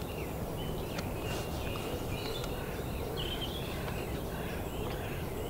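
Birds singing, a run of short chirping and warbling phrases one after another, over a steady low background noise.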